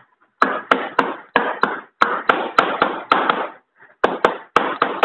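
Light hammer taps seating a cover plate and its new seal onto a TVS Wego scooter engine's crankcase: about fifteen sharp strikes in three quick runs, each with a short ring.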